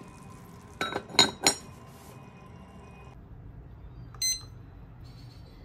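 Three quick, ringing clinks of cookware, then a few seconds later a single short electronic beep from a button being pressed on a Tanita digital kitchen timer.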